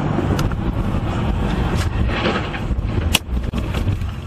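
Car driving on a wet highway, heard from inside: steady low road and engine rumble. There is a brief hiss about two seconds in and a few sharp clicks, the loudest just after three seconds.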